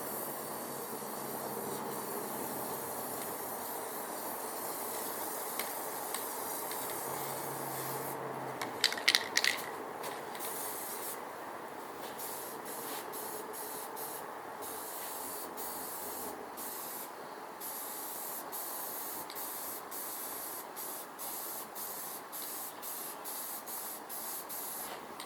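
Spray paint hissing steadily as the tractor is painted, the spray stopping and starting many times in short passes through the second half. A brief cluster of sharp clicks about nine seconds in.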